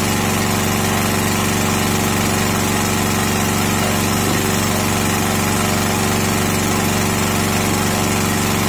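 Sakura Storm D9000E generator engine running steadily under heavy load from a load bank, its panel meter reading about 7.5 on power, 225 V and 48 Hz, so the engine is pulled slightly below its 50 Hz speed.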